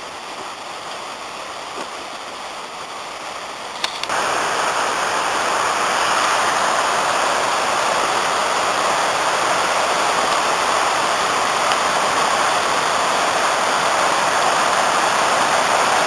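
Waterfall on the Afon Nantcol in spate after days of rain, the water rushing steadily; it becomes suddenly louder about four seconds in.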